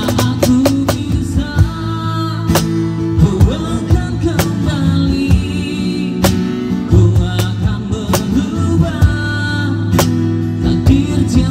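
Live band music through a PA speaker: a held bass line under guitar and a melody line, with sharp percussion hits every second or so.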